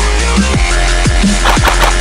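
Background music: an instrumental stretch of a rap track with heavy electronic bass and repeated deep falling bass drops, no vocals.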